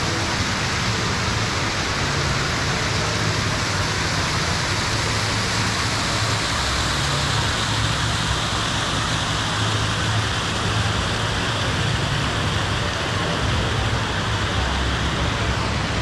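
Steady rushing and splashing of an indoor waterfall over artificial rock.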